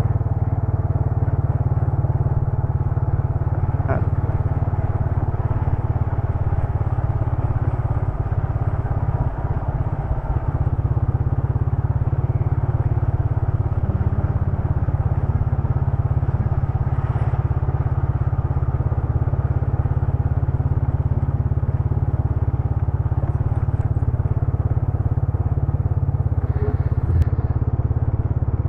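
A vehicle's engine running steadily while on the move, with a constant low rumble and no change in pace.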